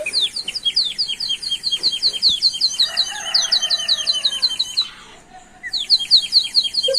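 Clay bird water whistle, filled with water and blown, giving a fast warbling trill of short falling chirps, about six or seven a second, like a sparrow. It stops for about a second around five seconds in, then starts again.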